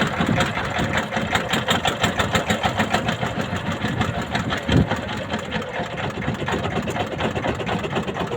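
A boat's engine running steadily with a fast, even chugging beat. A single dull thump sounds about halfway through.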